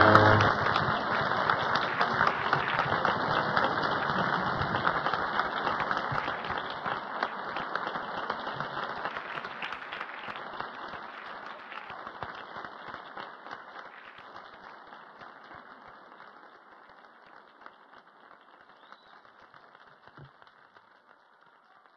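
The music's final chord cuts off about half a second in. An audience then applauds, and the applause fades steadily away.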